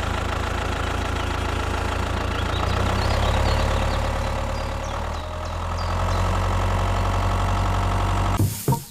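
Engine running steadily with an even low hum, which shifts slightly about five seconds in; faint bird chirps about three seconds in.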